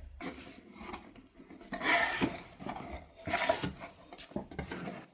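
Handling noise: a few short rubbing, scraping passes of objects moved against a surface, loudest about two seconds in and again about three and a half seconds in.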